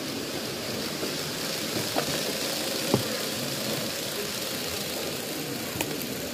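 N-gauge model trains running on a layout: a steady whirring hum with a few short sharp clicks, the loudest about three seconds in.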